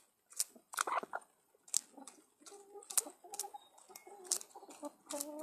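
Chickens clucking softly in short pitched calls, starting about halfway through, among a scatter of sharp clicks and taps.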